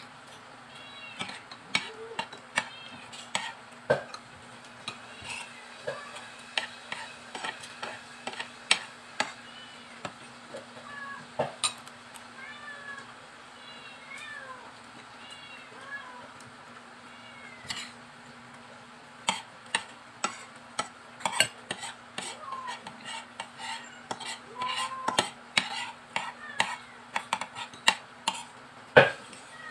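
Spoon and fork clicking and scraping on a ceramic plate while eating, many quick taps. Short high mewing calls from a cat come and go in small groups.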